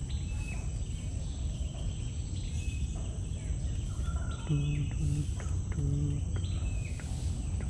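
Outdoor ambience: a steady high-pitched insect drone with scattered short bird chirps over a low background rumble. A little past halfway come three short, low hummed notes.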